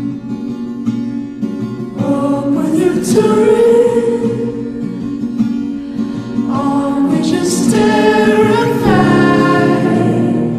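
Background music: strummed acoustic guitar with a singing voice. The voice comes in with long held notes about two seconds in and again from about seven seconds.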